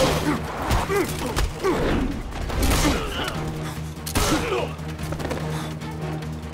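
Staged fight sound effects: several sharp impacts and hits with grunting voices, over dramatic score music. The music settles into a sustained held chord in the second half.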